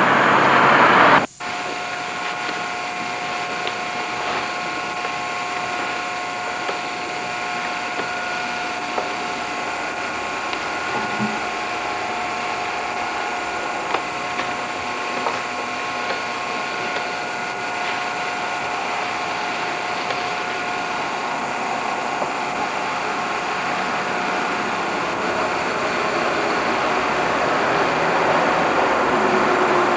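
Steady mechanical hum with hiss and a few held tones, starting after a brief dropout about a second in and growing slightly louder toward the end, with a few faint ticks.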